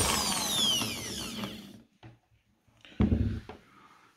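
Einhell TC-ID 1000 E impact drill's motor spinning down after the trigger is released, its whine falling in pitch and fading over about two seconds. A short thud follows about three seconds in.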